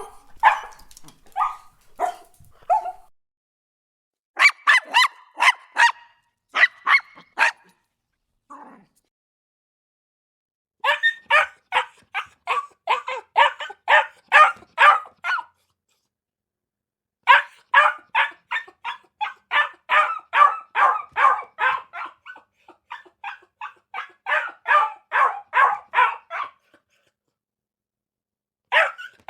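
Dog barking in runs of quick repeated barks, about four a second in the longer runs, broken by gaps of a few seconds of silence.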